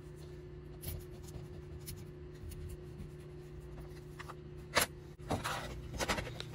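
Needle file rubbing in light, quiet strokes on the edge of a thin styrene plastic part, with one sharp tick about five seconds in. A steady low hum runs underneath.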